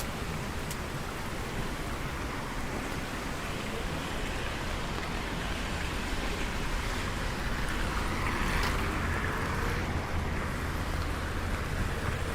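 Steady rain falling, heard as a continuous even hiss of water, swelling for a few seconds about two-thirds of the way through.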